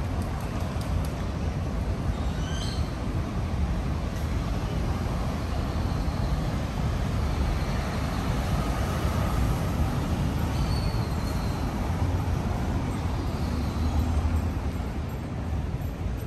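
Street ambience: a steady low rumble of traffic, with a few brief high chirps.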